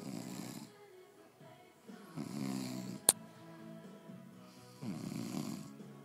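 A man snoring: three snores about two and a half seconds apart, with a single sharp click a little after the middle.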